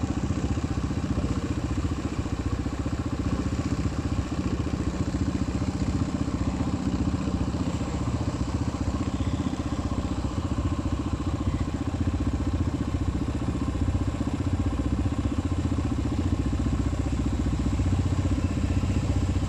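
Engine of a Max IV amphibious six-wheel ATV running steadily under load as it drives through marsh water: a low, even drone with a fast pulse, a little stronger near the end.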